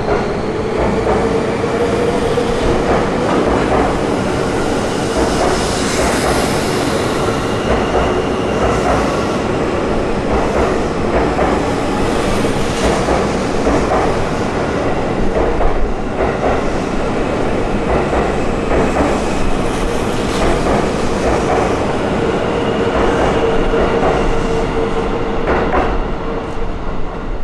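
JR East 651 series limited-express electric train departing and passing close by, its wheels clicking over rail joints and points. A steady whine runs under the rumble, rising slightly in pitch in the first couple of seconds and then holding.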